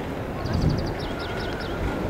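Low, steady rumble of distant Kawasaki T-4 jets mixed with wind buffeting the microphone. About half a second in, a small bird chirps a fast run of high notes followed by a few quick falling notes.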